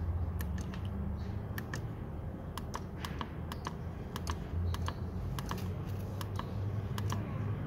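Datakom D300 generator controller's keypad buttons clicking under a finger, about two dozen short clicks at an uneven pace as the programming menu is scrolled, over a low steady hum.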